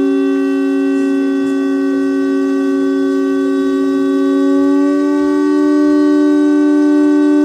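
One long, steady blown note from a horn-like wind instrument, its pitch stepping slightly up about five seconds in.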